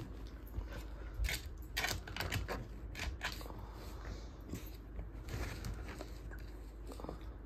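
A border collie puppy and a cockapoo play-wrestling on a quilted bed: irregular rustling of fur and bedding with soft clicks, busiest in the first half.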